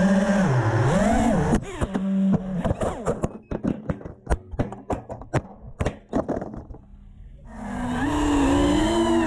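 Brushless motors of a 5-inch FPV quadcopter (Brotherhobby T3 2306 2600KV) whining, the pitch swinging with the throttle. About a second and a half in the motors cut out, and a run of sharp clicks and knocks follows as the quad crashes and tumbles. The motors spool back up near the end as it recovers.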